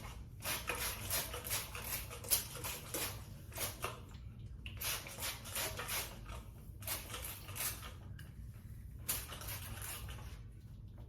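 Repeated brisk brush strokes through long, damp wig hair, a quick series of rustling swipes with short pauses between runs.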